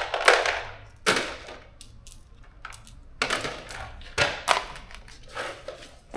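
Steel bolts and nuts clattering and clinking as they are handled and dropped, about six separate sharp rattles.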